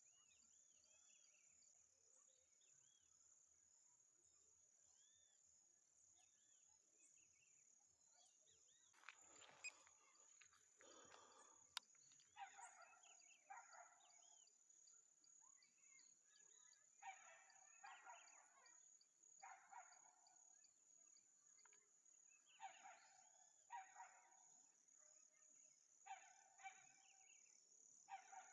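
Faint rural nature ambience: a steady high insect drone with small bird chirps, then from about a third of the way in a dog barking over and over, often two barks at a time.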